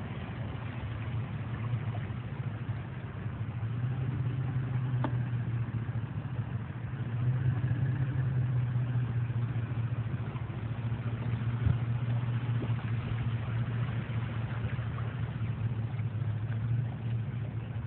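A vehicle engine running steadily at low revs, a low hum that grows slightly louder about four seconds in and again about seven seconds in.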